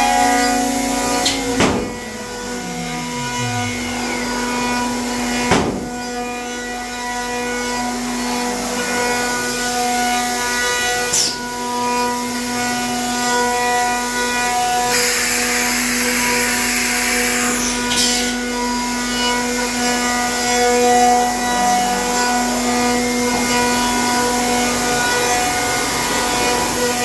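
CNC router spindles milling walnut gun stocks: a steady spindle whine with wood-cutting noise. A falling tone about two seconds in sounds like a spindle slowing, and a short hiss comes a little past halfway.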